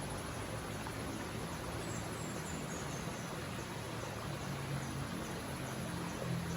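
River water flowing steadily, with insects, typical of crickets, keeping up a continuous high-pitched trill over it. A few faint short chirps come in about two seconds in.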